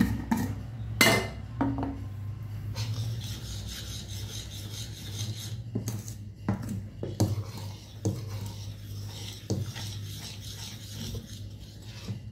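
A long steel spoon stirring thick fermented dosa batter in a stainless steel pot to mix in salt: a wet scraping against the pot's sides and bottom, with several clinks and knocks of the spoon on the pot.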